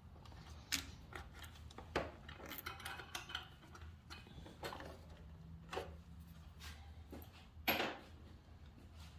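Scattered light clicks and clinks of hand tools and small parts being handled during motorcycle disassembly, over a low steady hum; the most distinct knock comes near the end.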